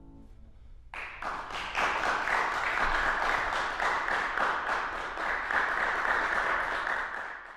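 Audience applauding, starting about a second in and continuing steadily with many separate claps audible.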